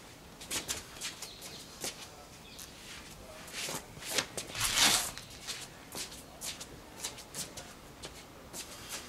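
Shoes stepping, scuffing and pivoting on stone patio paving during fast martial-arts footwork, a quick run of short scrapes and taps. A louder rushing sound swells and peaks about halfway through.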